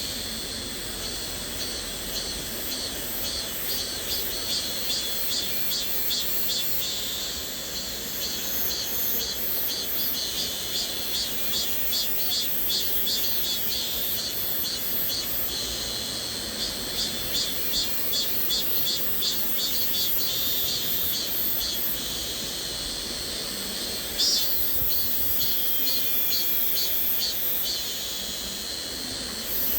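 A cicada chorus, high-pitched and pulsing in waves about twice a second, over the even rush of a flowing stream. A brief sharp sound stands out about 24 seconds in.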